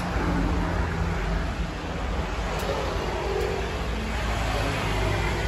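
Steady road-traffic rumble and hiss with a low hum underneath.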